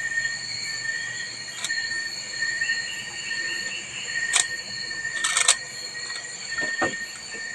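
Steady high-pitched insect chorus, with sharp clicks about one and a half, four and a half and five and a half seconds in from a Rubik's cube being twisted.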